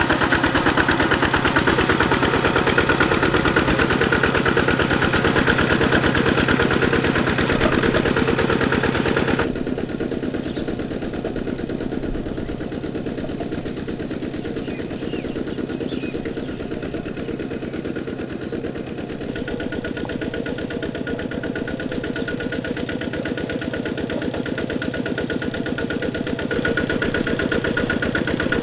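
Single-cylinder diesel engine of a Kubota two-wheel walking tractor running steadily under load as it pulls a disc plough through wet rice-field soil, with a fast, even chugging beat. About a third of the way in it turns quieter and duller, then grows louder again near the end.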